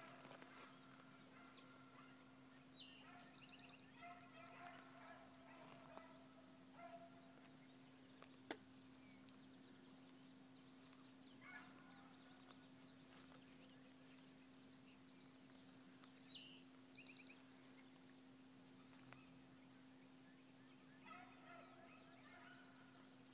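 Faint, distant rabbit hounds baying in short bursts of rapid yelps, off and on, as they trail a rabbit.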